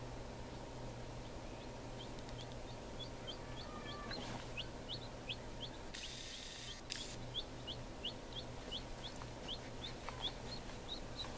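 Newly hatched chick peeping: a steady series of short, high, falling peeps, about three a second, over the steady low hum of the egg incubator.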